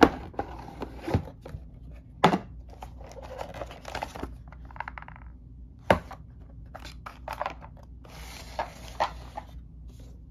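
Cardboard board-game box being opened by hand and its contents handled: a few sharp knocks of the cardboard lid and box, with paper and plastic rustling as the rulebook is lifted out, the rustle busiest near the end.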